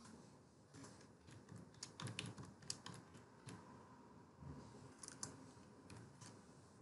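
Faint typing on a computer keyboard: scattered keystrokes, clustered a couple of seconds in and again near five seconds.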